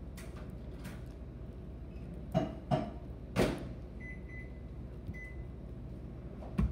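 Sticky glue slime being kneaded by hand, a few short wet squelches and smacks over a steady low background hum. A faint, thin, high tone sounds briefly about four seconds in.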